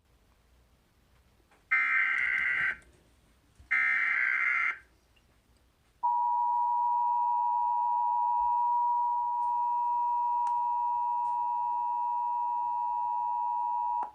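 Emergency Alert System tones. First come two data bursts of the SAME digital header, each about a second long and two seconds apart. About six seconds in, the EAS attention signal starts: a steady two-note tone held for about eight seconds, heralding a National Weather Service tornado warning.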